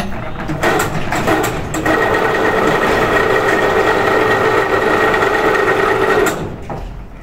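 A factory machine's electric motor running with a steady whine after a few clicks, then cutting off sharply about six seconds in.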